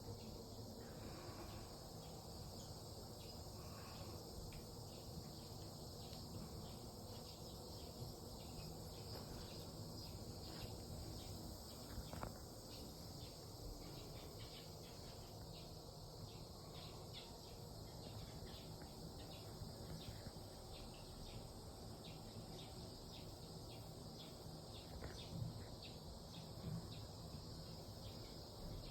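Faint, steady chirring of insects, a continuous pulsing high buzz over a low background rumble.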